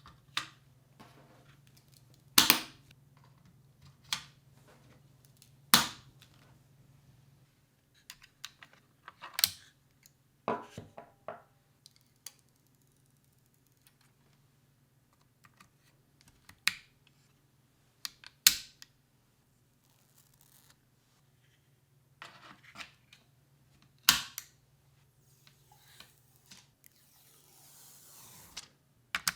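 Small hardware and packaging being handled during a PC build: scattered sharp clicks and taps, a dozen or so, with a low steady hum that stops about a quarter of the way in and a brief rustle near the end.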